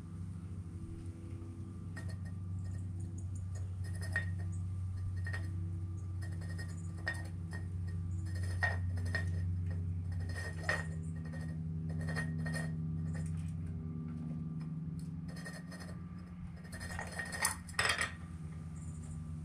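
A squirrel rummaging among small cups on a patio table, knocking them against the tabletop: irregular light clinks and taps, each with a short ring, with the loudest cluster near the end. A steady low hum runs underneath.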